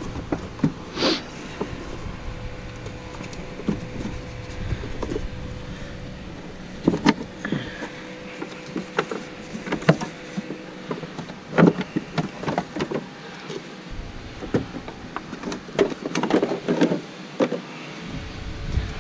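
Scattered plastic clicks, knocks and rattles as a Ford 7.3L Super Duty's stock plastic airbox parts are handled and pulled out of the engine bay. A faint steady hum runs underneath.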